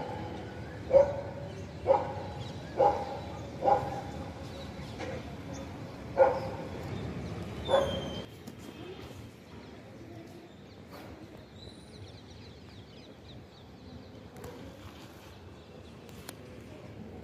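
A dog barking, seven short barks about a second apart over the first eight seconds, then stopping.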